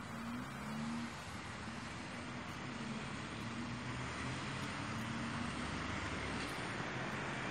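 A car driving: steady road noise with a low engine hum.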